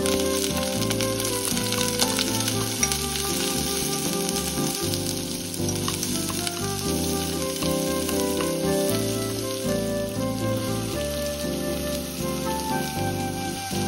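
Sliced onions sizzling in melted beef tallow in a non-stick pot while wooden chopsticks stir them, over background music with held notes.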